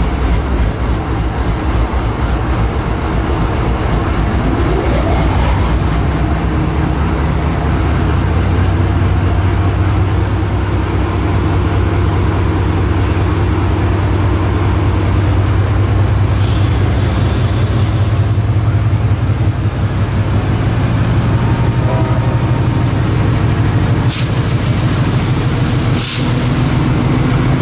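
The HXN5 diesel locomotive's GE GEVO-16 engine running steadily after start-up, a deep low drone that swells slightly a few seconds in. A rising whine comes in about five seconds in. Compressed air releases in a burst of hissing about two-thirds of the way through and in two short hisses near the end.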